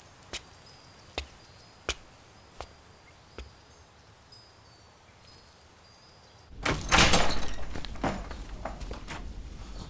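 A series of sharp single clicks about every three-quarters of a second, then about six and a half seconds in a door is flung open with a loud bang and a clatter that dies away.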